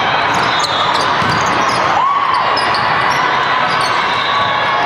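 The steady din of a big indoor volleyball tournament hall with many courts in play at once. Court shoes squeak on the sport flooring and balls thud, over a wash of voices, with one longer squeak about two seconds in.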